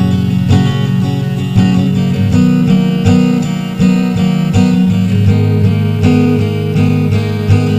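Acoustic guitar strumming chords in a steady rhythm, about two strums a second, as a song's instrumental intro.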